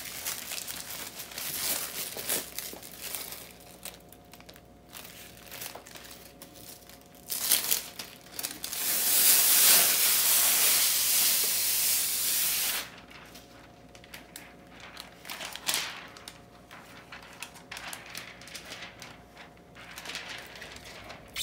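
Clear plastic rhinestone transfer tape being handled: crinkling and rustling of the sheet, with one long, even tearing hiss of about four seconds near the middle as the sticky tape is pulled from its backing.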